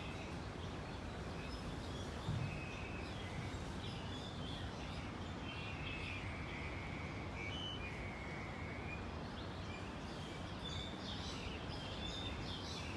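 Small birds chirping and twittering repeatedly over a steady background of outdoor noise.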